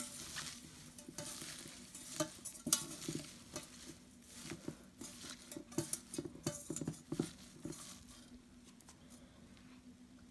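Hands kneading and squeezing salted leafy flower shoots in a metal pot, working the salt in: irregular rustling and crunching with small knocks, busiest for the first eight seconds and thinning out near the end.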